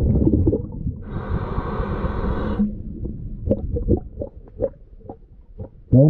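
Underwater sound of a scuba diver: a low rumble, then a steady regulator hiss for about a second and a half, followed by scattered small clicks and taps.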